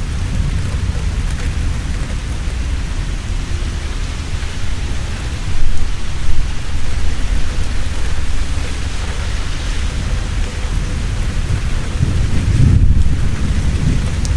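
Heavy steady rain with rolling thunder, the rumble swelling loudest about six seconds in and again near the end.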